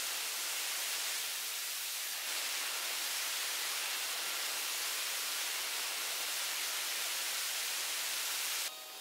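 CNC router milling through duralumin plate with an end mill spinning at 8000 rpm: a steady, bright hiss with no clear pitch. It cuts off suddenly near the end.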